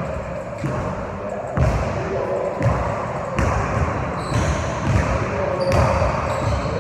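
Basketball bouncing on a hardwood gym floor, a separate thud about once a second.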